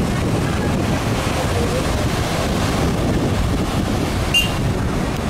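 Wind buffeting the microphone with a steady low rumble, over waves surging and breaking on the shore. A brief high chirp sounds about four seconds in.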